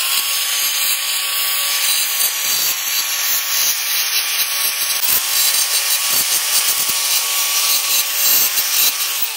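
Angle grinder running with an abrasive disc, grinding the edges of a small sheet-metal pump impeller held in pliers to trim it to size. A steady high motor whine runs under a harsh grinding hiss, and the whine fades briefly about five seconds in.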